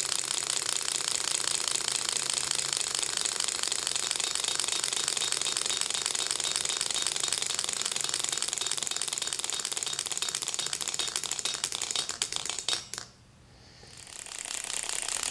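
Six-cylinder Gatling-style Ringbom Stirling engine running fast, a steady, very rapid clicking from its displacers shuttling back and forth against the pistons. The clicking thins out and drops away briefly near the end, then comes back.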